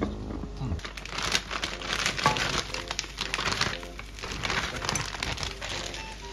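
Plastic bag crinkling and rustling as eggplant pieces are poured from it into a frying pan, in irregular crackly bursts.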